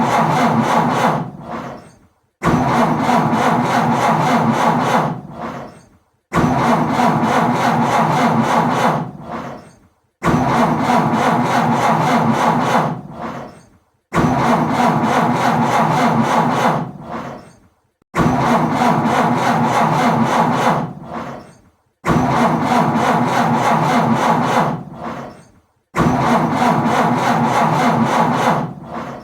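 Car engine being cranked over by the starter without catching: each try runs about three seconds, fades out, and after a short pause begins again, about every four seconds, seven times. The car won't start.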